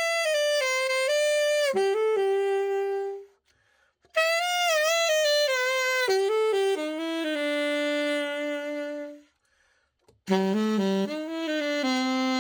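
Selmer Super Balanced Action alto saxophone played solo after its precision setup: three short phrases of stepwise falling notes, each ending on a long held low note, with brief pauses between them.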